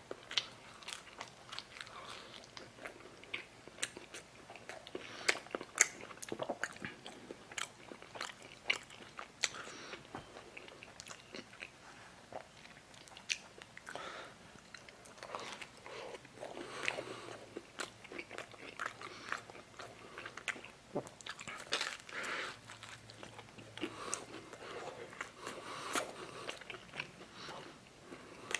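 A person biting and chewing a crunchy snack close to the microphone: many irregular crunches and clicks.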